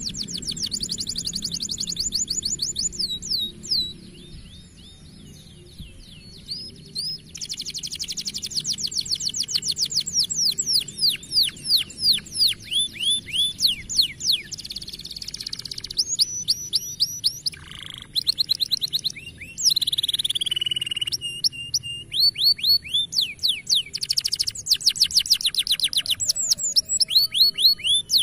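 Domestic canary singing in long phrases of fast trills: rapid runs of high, downward-sweeping notes that change speed and pitch from one phrase to the next, with a quieter, sparser stretch a few seconds in.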